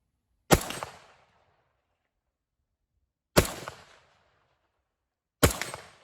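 Three gunshots, each a sharp crack trailing off in a short echo, the last two about two to three seconds apart.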